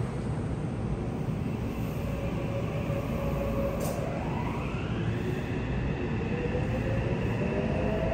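Yokohama Municipal Subway 3000R-series train's Mitsubishi IGBT-VVVF traction inverter whining in tones that climb in pitch as the train accelerates away from a station, heard inside the car over a steady rumble of wheels on rail. The rising whine sets in about halfway through, and a second rising tone joins near the end.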